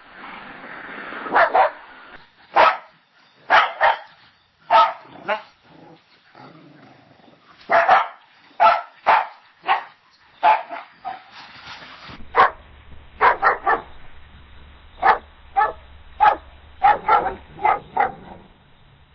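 Dogs barking in a string of separate recordings: loud short barks, single or in quick pairs, roughly one a second. In the last recording a low hum runs under the barks.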